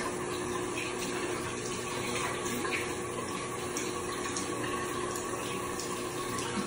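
Tap water running steadily into a sink, with soft splashes as water is cupped in the hands and splashed onto the face to rinse off facial wash.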